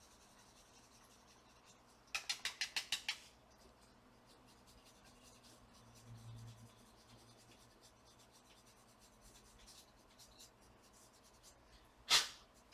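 A small brush scrubbing the dust out of a laptop's cooling fan. About two seconds in comes a quick run of roughly eight rasping strokes, followed by faint scattered brushing. Near the end there is one short, loud rushing burst.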